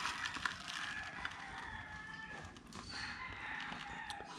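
A rooster crowing faintly, long drawn-out calls, over a few light clicks of a cardboard box being handled.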